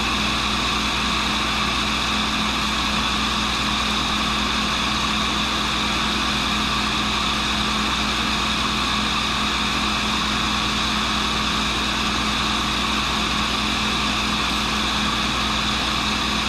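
An 80-year-old WW2-era tool and cutter grinder running steadily as a small carbide boring-bar cutter is ground against its coarse, low-concentration cup wheel. It makes an even hum with a higher whine above it.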